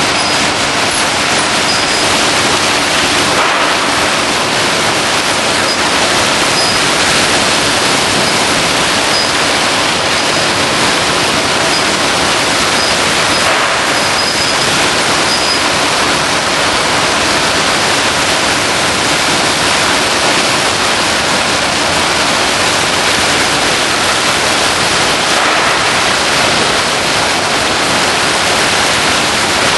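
Steady, loud rushing noise of a packaging line's conveyors and crate-rotating machinery: an even hiss with no distinct knocks or clatter. A faint high whistle comes and goes in the first half.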